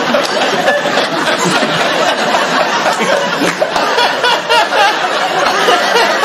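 Studio audience laughing together, a dense continuous wave of laughter with scattered chuckles.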